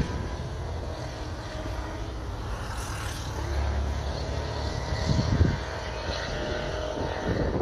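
Distant jet airliner's engines on the runway, a steady low rumble that swells a little in the middle. Wind buffets the microphone about five seconds in and again near the end.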